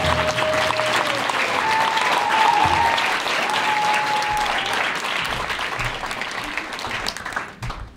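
Audience applauding in a full room; the applause dies away near the end.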